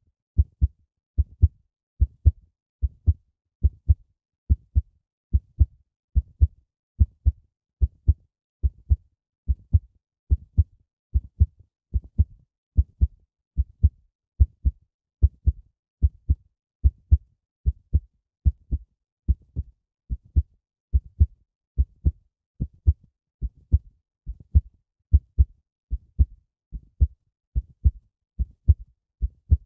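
A heartbeat: a steady run of paired low thumps (lub-dub), a little more than one beat a second.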